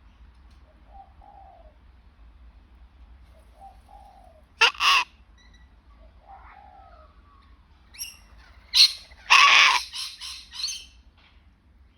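Sulphur-crested cockatoo calling: a few soft, low short notes, one loud harsh call a little before the middle, and a run of several loud harsh calls in quick succession in the last third.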